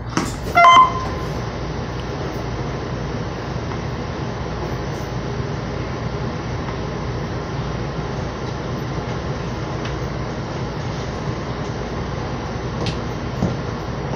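Steady hum and rumble inside a Metro Blue Line light-rail car. About half a second in, a brief loud chime of a few bright tones sounds over it.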